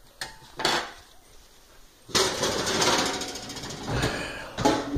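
Plastic spoon scraping through rice in a non-stick skillet: a couple of brief scuffs, then a loud, rapid rattling scrape lasting about three seconds, starting about two seconds in.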